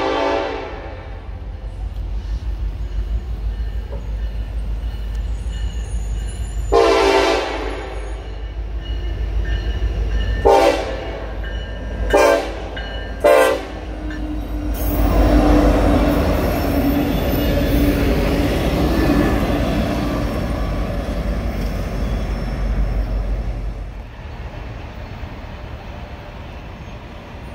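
Train horn on a CSX track geometry inspection train, sounding a blast of about a second and then three short blasts. It is followed by the rumble of the train passing, loudest at first and then fading away.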